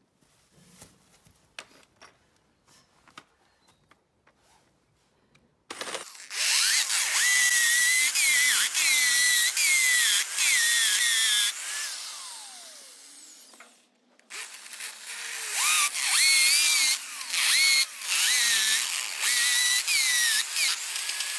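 Electric drill with a masonry bit boring holes into a concrete wall for sleeve anchors, its motor pitch dipping and recovering as the bit bites. Nearly quiet with a few faint clicks at first, the drill starts about six seconds in, runs down around twelve seconds, and starts again about two seconds later.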